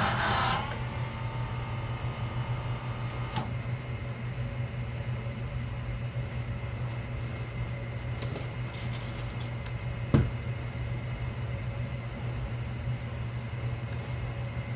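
Electric sharpening machine's motor running steadily, a low hum with a faint high whine. A louder noise stops in the first second, and a couple of light knocks come later.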